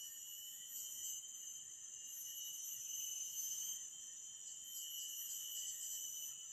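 Forest insects keeping up a steady high-pitched drone, with a few short, high chirps about a second in and again around four to six seconds in.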